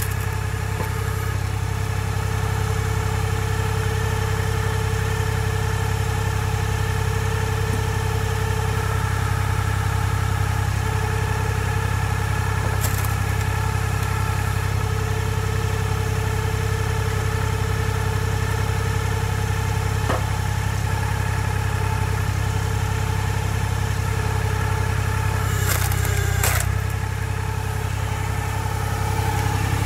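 Fendt Farmer 2 tractor engine running steadily, driving the hydraulic log splitter. A few sharp cracks and knocks of logs being split come through, once about midway and twice near the end.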